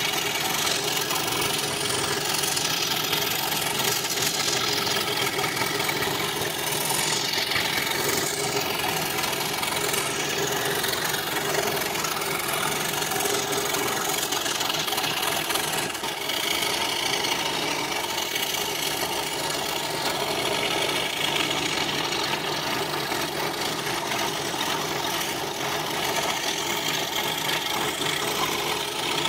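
Scroll saw running steadily, its reciprocating blade cutting through thin plywood.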